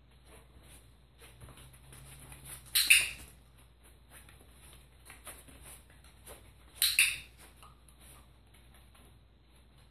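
A dog-training clicker clicked twice, about four seconds apart, each time a sharp press-and-release double click, with faint light taps in between.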